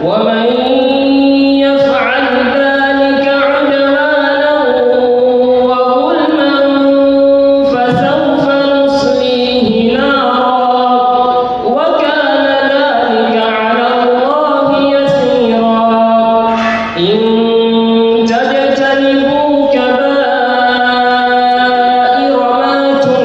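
A teenage boy's solo Quran recitation in the melodic tajweed style into a handheld microphone: long held, ornamented notes sung in phrases of several seconds, with brief breaths between.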